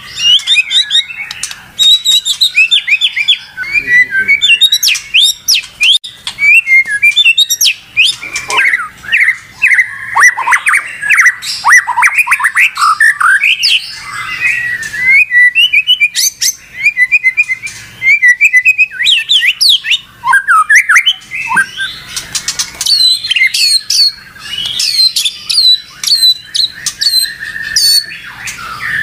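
White-rumped shama (murai batu) singing loudly and almost without pause: a fast, varied run of clear whistles, slurred sweeping notes and chattering phrases, with short breaks between bouts.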